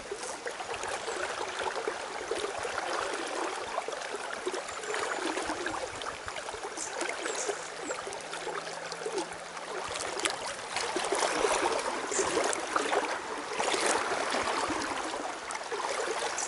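River current flowing and rippling steadily.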